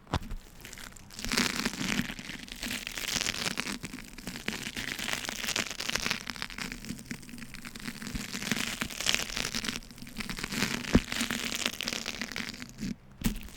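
Beeswax food wrap being crinkled and pulled apart in the hands: a dense, crackly rustle with short lulls, and a sharp crack about eleven seconds in.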